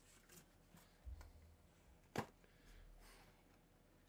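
Near silence with a few faint cardboard rustles and one sharp tap about two seconds in, as a cat noses and paws at the cardboard packing inside a shipping box.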